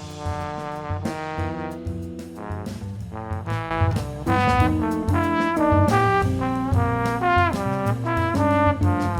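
Instrumental music: a horn melody over a bass line and a beat, swelling louder about four seconds in.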